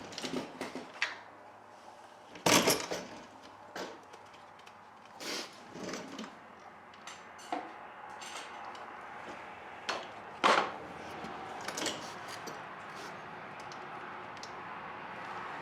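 Hand tools and metal parts clinking and clanking in irregular strikes while working on a small engine, with a few sharper knocks standing out.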